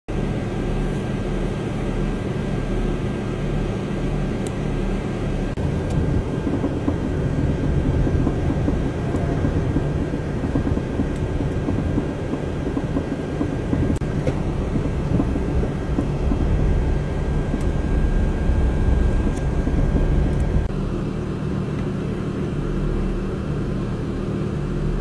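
Steady low mechanical rumble with a faint constant whine; the whine stops about twenty seconds in and the rumble changes character.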